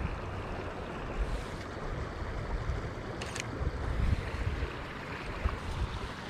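Wind buffeting the microphone: an uneven low rumble over a steady hiss, with one brief crisp click about three seconds in.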